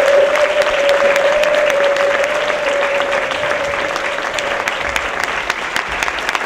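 Theatre audience applauding, many hands clapping steadily. A single steady tone is held over the clapping and fades out about halfway through.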